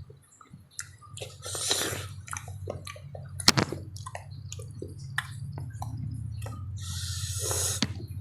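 Close-up mouth sounds of eating juicy papaya: wet smacking clicks, one sharp click about three and a half seconds in, and two longer slurping sounds, one near the start and one near the end, over a low steady hum.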